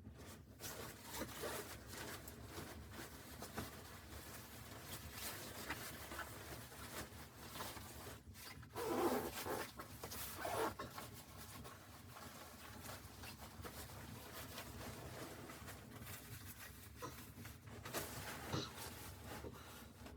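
Continuous rustling and scraping, like fabric or gear being handled close by, with a louder scraping burst about nine seconds in and shorter ones near eleven and nineteen seconds.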